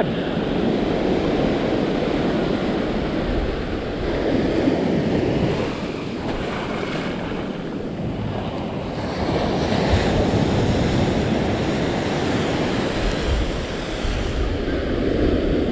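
Ocean surf breaking and washing up a sandy beach, a continuous rush that swells and eases as the waves come in, with wind buffeting the microphone.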